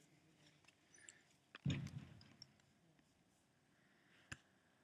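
Quiet room tone broken by a few faint clicks and one soft thump with a short fading tail about one and a half seconds in, then a single sharp click near the end.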